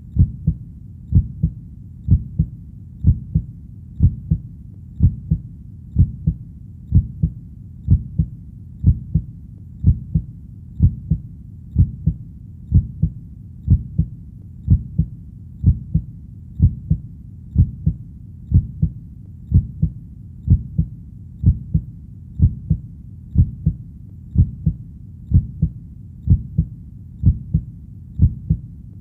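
A heartbeat beating steadily at about one beat a second, each beat a low double thump (lub-dub), over a faint low background.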